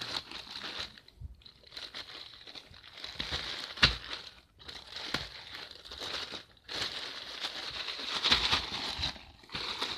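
Plastic packaging crinkling and rustling as hands unwrap a parcel, in uneven bursts with a few sharp crackles.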